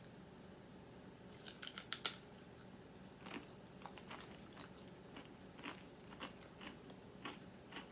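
Ripple-cut potato chips being bitten and chewed: a quick run of sharp crunches about one and a half to two seconds in, then single crunches every half second or so as they are chewed.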